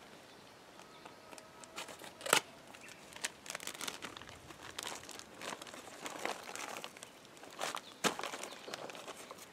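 Plastic bag of partly frozen cut bait crinkling and rustling as it is opened and handled, in irregular crackles, the sharpest about two seconds in.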